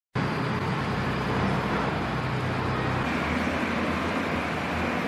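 Engines of heavy construction machinery running steadily, with a low engine hum under a wide noisy wash. The sound starts abruptly just after the beginning, and the engine note changes about three seconds in.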